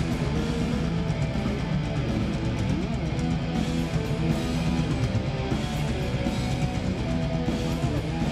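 Folk metal band playing live through a PA: electric guitars over drums, heard from within the crowd.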